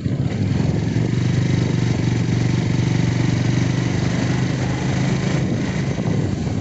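Motorcycle engine running steadily under way, heard from the rider's seat, over an even rush of road and wind noise. The engine note grows stronger about a second in and eases off a little near the end.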